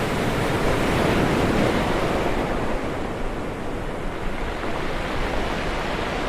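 Ocean waves crashing on the shore: a dense rush of surf, loudest in the first two seconds, then easing off as the wash spreads out.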